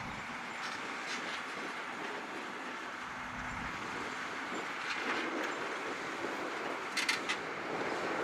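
John Deere 7280R tractor pulling an eight-furrow Kverneland plough through the soil: a steady working noise with occasional metallic clanks, a quick cluster of them near the end.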